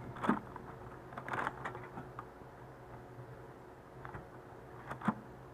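Faint, scattered small clicks and rustles as a sugar cookie is handled.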